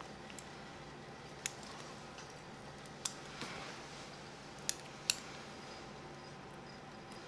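Surgical steel instruments (hemostats and a needle holder) clicking and tapping, about five sharp separate clicks spread over several seconds. A steady hum of operating-room equipment runs underneath.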